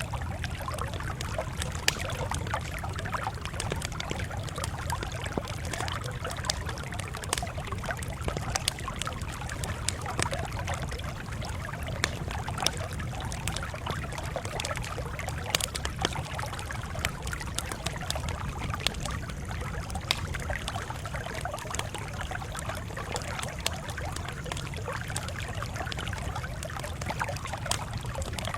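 Campfire crackling, with frequent sharp pops and snaps over a steady low rumble.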